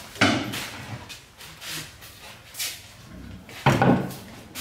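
Knocks and bumps as household things are handled, then a heavy thud near the end as a round wooden chopping board is set down on a wooden table.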